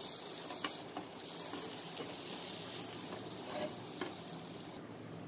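Melted butter sizzling in a nonstick frying pan as a split pav bun is pressed cut side down into it to toast. A steady sizzle with a few faint crackles, the hiss easing slightly near the end.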